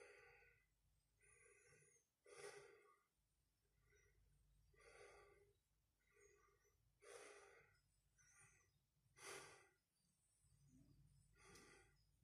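A man breathing faintly and audibly in and out close to the microphone, about ten short breaths, roughly one a second.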